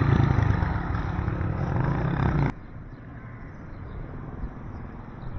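Low, steady rumble of a motor vehicle engine close by, cutting off suddenly after about two and a half seconds to quieter open street ambience.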